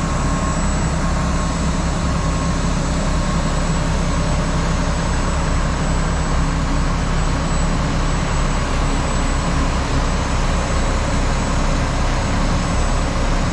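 Heavy diesel garbage truck engines idling, a steady low drone.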